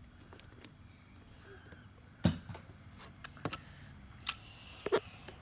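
A handful of sharp clicks and knocks of small plastic toy parts being handled on a table. The loudest comes about two seconds in, and a few lighter ones follow over the next three seconds.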